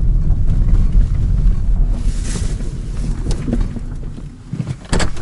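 Heavy low rumble of a car driving, heard from inside the cabin; it slowly eases off, and a few sharp clicks come near the end.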